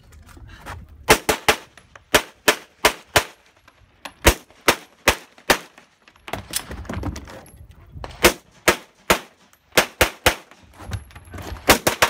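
Glock 34 9mm pistol firing fast strings of shots, about four shots per string at roughly three a second, with short breaks between strings.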